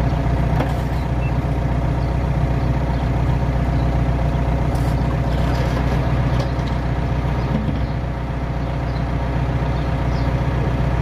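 Excavator's diesel engine idling steadily, heard close up from the operator's cab, with a few faint clicks.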